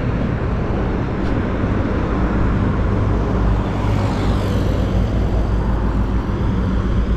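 Fast road traffic on a busy highway: a steady rush of cars and their tyres passing at speed, with one vehicle going by more loudly about four seconds in.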